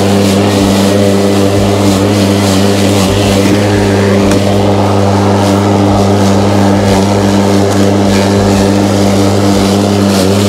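Husqvarna LC347VLI battery lawn mower running at steady speed while cutting grass, its electric motor and blade giving a steady hum.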